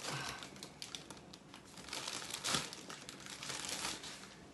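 Bunch of wet fresh parsley rustling and crinkling as sprigs and leaves are pulled off the stems, in several short bursts.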